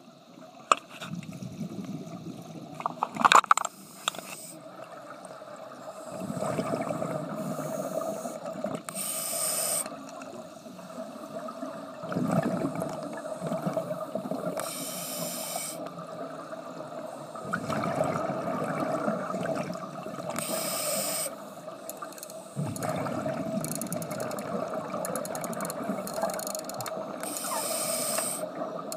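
Scuba diver breathing through a regulator underwater: a short high hiss on each inhale, four times about six seconds apart, with a longer rumble of exhaled bubbles between them. A few sharp knocks sound about three seconds in.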